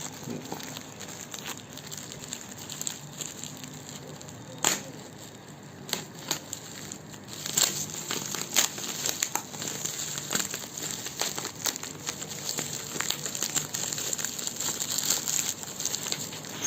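Plastic packaging crinkling and rustling as it is handled and unwrapped, with many small clicks and crackles and a few sharper snaps.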